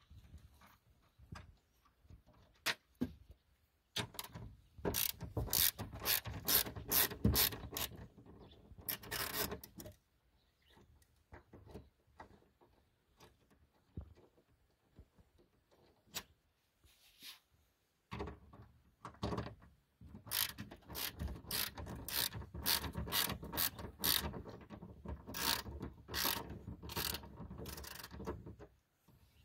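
Ratchet wrench with a 14 mm socket clicking rapidly as it undoes the bolts holding a BMW F30 door mirror. The clicking comes in two long spells with a quiet pause between.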